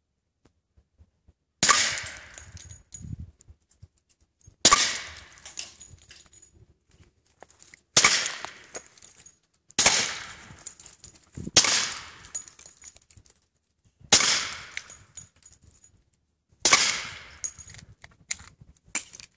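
Seven suppressed .45 ACP pistol shots from an H&K USP 45 Tactical fitted with an Advanced Armament suppressor, fired singly about two to three seconds apart, each a sharp crack with a short decaying tail.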